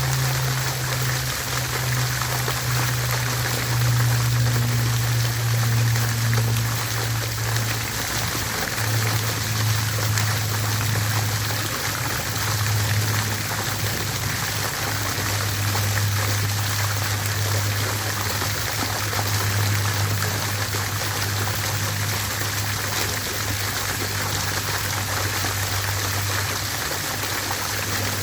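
Water fountain splashing and trickling steadily, with a low hum underneath that shifts slightly in pitch a few times.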